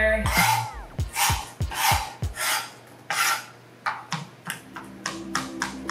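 Chef's knife chopping fresh thyme on a cutting board: a run of short taps of the blade on the board, coming faster near the end.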